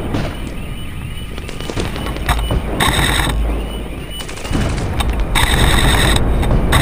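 Two short bursts of full-auto airsoft gun fire, each under a second of rapid, evenly spaced shots, the second a little longer. Low rumble of wind or handling on the helmet camera throughout.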